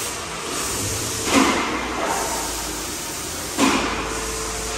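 Car service workshop noise: a steady background hiss, broken by two sudden loud bangs a little over two seconds apart.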